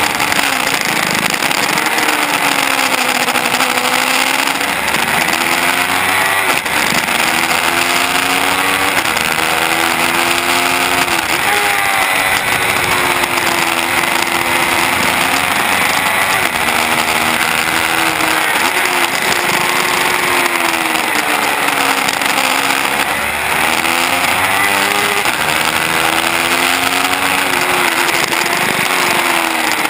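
2015 Yamaha R3's 321 cc parallel-twin engine, fitted with a cheap aftermarket muffler, revving hard at racing speed. Its pitch climbs and drops again and again through gear changes and braking for corners, under a steady wind rush.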